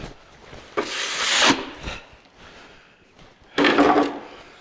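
Yellow plastic snow shovel scraping through packed snow on a concrete floor: one long scrape about a second in, then a second, shorter scrape about three and a half seconds in.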